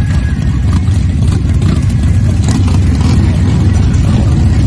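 Harley-Davidson motorcycle engine running, a loud steady low rumble.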